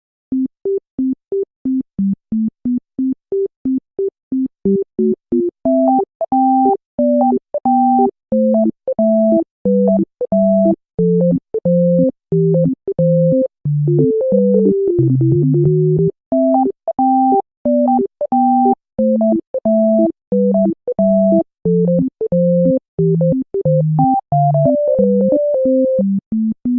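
Background music: a light, bouncy melody of short, clipped synthesizer notes with brief gaps between them, dipping into a lower falling run about halfway through.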